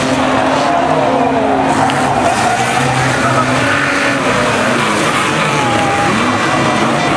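Engines of a pack of banger racing cars running hard as they race round a bend, their pitch rising and falling as the cars rev.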